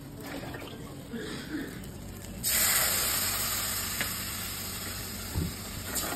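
Spice paste frying in hot oil in an aluminium pot: a sizzle starts suddenly about two and a half seconds in and slowly dies down. A metal spatula knocks against the pot a few times near the end.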